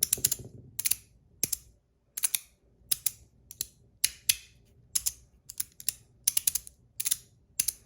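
3D-printed magnetic fidget slider being played with: sharp plastic clicks as its magnetic pieces snap together, about two to three a second at an uneven rhythm, some in quick pairs.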